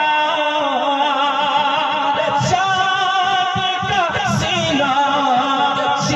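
A singer performing a naat, holding long melismatic notes with a wavering vibrato and sliding between pitches, over a low rhythmic backing.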